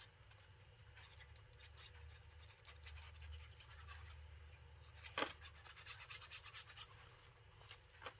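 Faint rustling of a patterned-paper frame being handled and flexed, with a sharper tap about five seconds in and a few small ticks after it.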